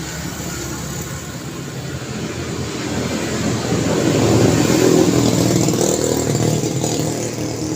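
Street traffic noise with a vehicle driving past close by, growing louder to its peak about halfway through and then fading a little.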